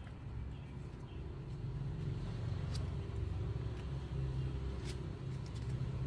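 Low steady engine rumble from a motor vehicle running nearby, growing louder about a second and a half in, with a few sharp ticks over it.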